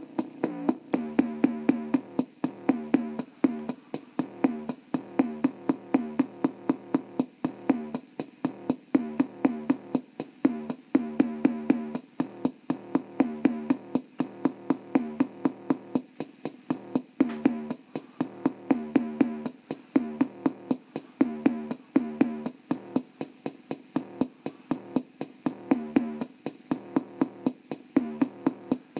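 Electronic bass-test music with a fast, even drum-machine beat and a wobbling bass line, played through the small built-in speaker of an Orion VHS/CRT TV combo; the bass sits mostly in the upper bass, with little deep low end.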